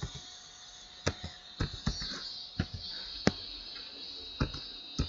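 Slow, irregular keystrokes on a computer keyboard, about ten sharp clicks, over a steady background hiss.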